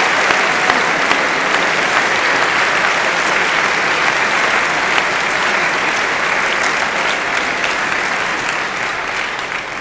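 Large audience applauding, a dense steady clapping that tapers off slightly near the end.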